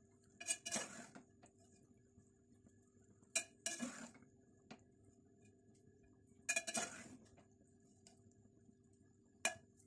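Metal spoon clinking and scraping against the sides of a metal cooking pot as spaghetti is tossed and mixed, in four short bursts of clinks a few seconds apart.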